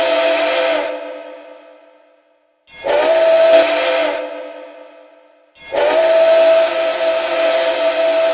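Pere Marquette 1225's six-chime steam whistle sounding a chord of several steady notes. One blast ends about a second in, a short blast follows about three seconds in, and a long blast starts just before six seconds and is still sounding at the end. Each cut-off trails away over about a second and a half.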